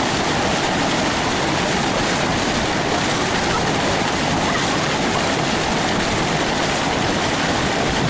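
Steady rushing noise of wind and water passing a craft moving low over the sea, even and unbroken.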